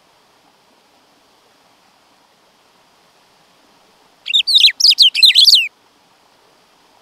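Black-throated saltator (bico-de-pimenta) singing one short phrase of rapid, falling notes about four seconds in, lasting just over a second.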